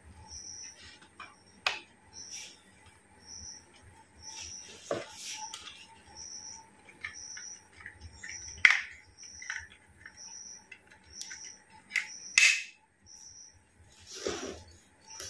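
Scattered sharp plastic clicks and knocks from a tripod's pan handle and head being fitted and adjusted by hand, the loudest about nine seconds in and another about twelve seconds in. Behind them a cricket chirps steadily, one short high chirp a little more often than once a second.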